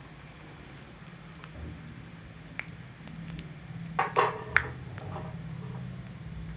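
Cumin seeds, bay leaf and dried red chillies frying in hot mustard oil in a metal kadhai, a soft sizzle over a low steady hum. About four seconds in, a short loud clatter of a metal spoon against the pan.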